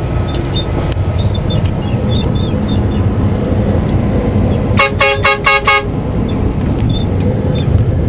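Steady engine and road noise inside a moving vehicle's cab, with a horn giving a quick run of short toots about five seconds in.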